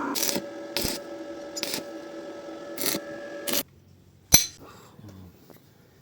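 Vacuum cleaner motor running with a steady hum while its body is knocked and handled several times; it cuts off suddenly about three and a half seconds in, and one sharp knock follows.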